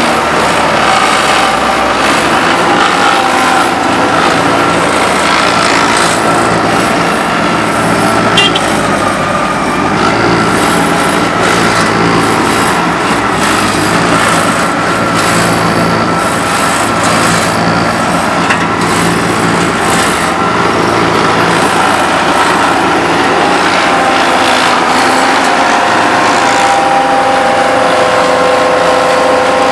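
Heavy diesel road-paving machinery, an asphalt paver with a dump truck feeding it, running steadily, with a whine that shifts slightly in pitch now and then.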